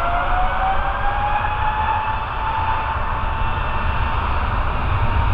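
Airbus A320neo's Pratt & Whitney PW1100G geared turbofan engines whining on the runway, the pitch rising over the first couple of seconds and then holding steady, over a low rumble.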